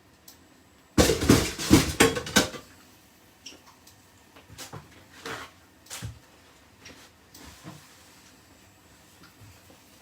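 Cookware and utensils clattering: a loud run of knocks and scrapes of a pan and metal utensils about a second in, lasting a second and a half, then scattered lighter knocks.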